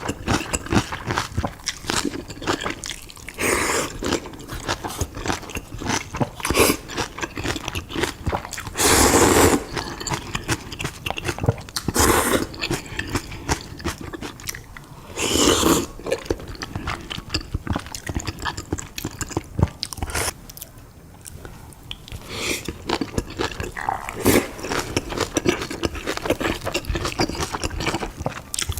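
Close-miked eating: a person chewing and taking crunchy bites of food, with many small mouth clicks and a few louder, longer crunches about nine and fifteen seconds in.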